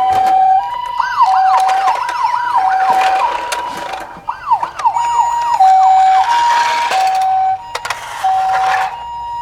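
Japanese-style two-tone ambulance siren alternating evenly between a high and a low note, about two notes a second. A second, quicker siren sweeping up and down overlaps it about a second in and again around four to five seconds, with patches of hiss and a few clicks.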